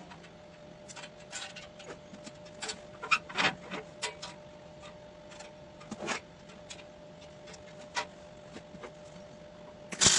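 Irregular clicks, knocks and short scrapes, a few seconds apart, over a faint steady hum, ending in one loud sharp knock.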